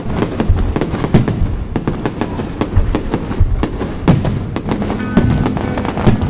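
Aerial fireworks bursting in quick succession: a dense run of sharp bangs and crackles, several a second, under deeper booms. Music with long held notes comes in about five seconds in.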